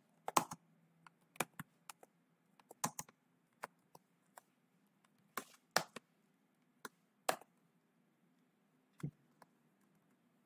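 Computer keyboard being typed on in sparse, irregular keystrokes, a few clicks at a time with pauses between them.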